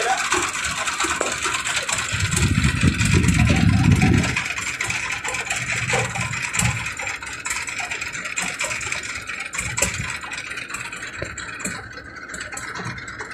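Engine of a small wooden river motorboat running steadily while the boat is under way. A louder low rumble lasts about two seconds, starting about two seconds in.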